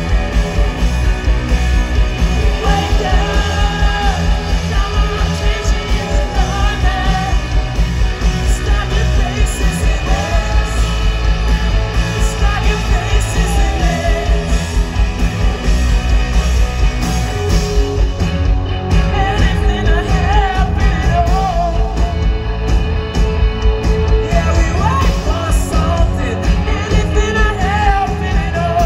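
Live rock band playing: electric guitars and a steady drum beat, with the lead singer's voice singing over them.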